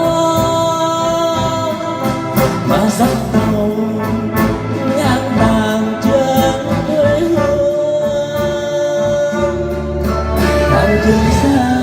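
A Vietnamese song: a singer holding long notes over instrumental backing, with no clear words.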